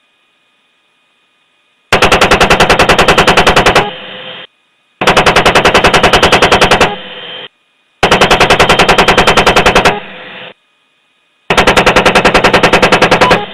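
AH-64 Apache's 30 mm chain gun firing four bursts of about two seconds each, at roughly ten rounds a second, starting about two seconds in. A short hiss of radio static follows each of the first three bursts.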